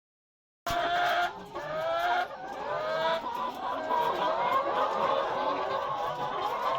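Desi chickens clucking, a string of short, pitched, slightly rising calls that start about half a second in and crowd over one another later on.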